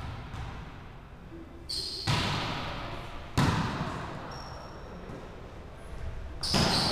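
Volleyball being struck during a rally, two sharp hits about a second and a half apart, then another loud hit near the end, each echoing through the gymnasium, with short high squeaks.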